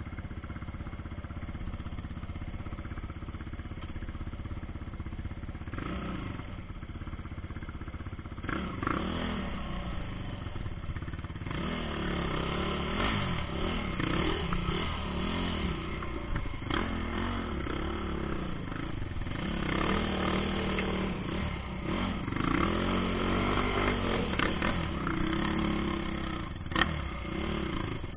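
Quad bike (ATV) engine heard from on board, running steadily at low revs for the first several seconds, then revving up and down over and over as it is ridden over a rough dirt trail. A few sharp knocks from the bumps.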